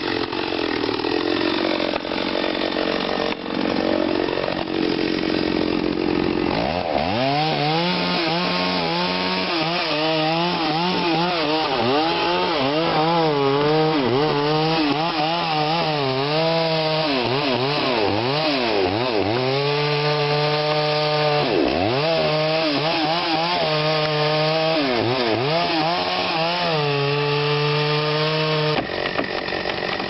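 Chainsaw cutting through the base of a large tree trunk at high revs. After a rougher first few seconds the engine note steadies, then its pitch dips sharply and recovers again and again as the saw is loaded in the cut. The note stops suddenly about a second before the end.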